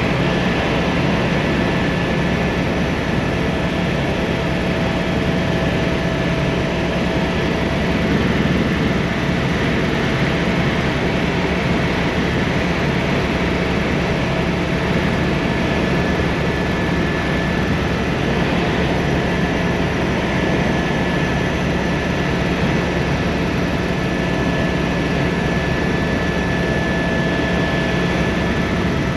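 Tour helicopter in flight, its engine and rotors running steadily, heard from inside the cabin: a constant rushing drone with a few steady whining tones.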